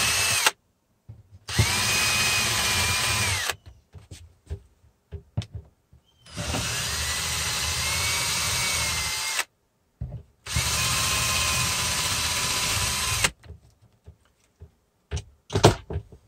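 Cordless drill motor whining steadily in four runs of two to three seconds each as it bores mounting holes for a cabinet pull through a cabinet door: one run stops about half a second in, and three more follow. Scattered light clicks and taps fill the last few seconds.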